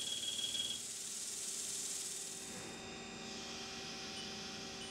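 Haas CNC lathe cutting soft jaws: the spindle turns the chuck under a coolant spray, giving a steady hiss with a faint machine hum and whine. The high hiss thins out about three seconds in.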